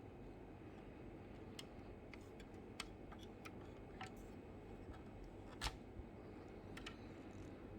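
Faint scattered clicks and light taps of a diecast model car and its packaging being handled, with one louder knock about two-thirds through, over a steady low hum.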